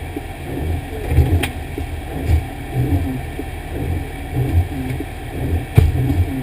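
Fire engine running, its low rumble heard from the cab, with two sharp knocks, one about a second and a half in and one near the end.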